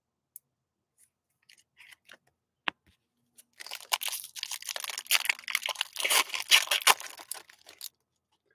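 A foil trading-card pack being torn open and its wrapper crinkled in the hands, a dense crackle lasting about four seconds that stops suddenly. A single sharp tap comes a little before it.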